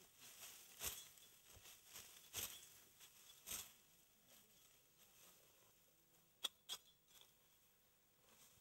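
Faint crisp rustling of dry wheat stalks being gripped and cut by hand with a sickle, three short swishes in the first few seconds, then two sharp snaps close together past the middle.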